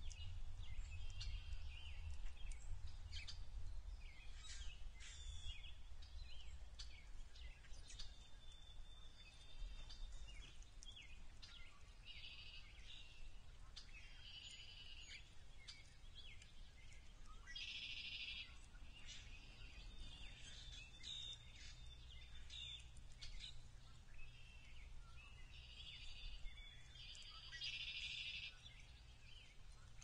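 Songbirds chirping and singing: scattered short calls, a few held whistles, and two dense trilled phrases of about a second each, one a little past halfway and one near the end. Under them runs a low outdoor rumble.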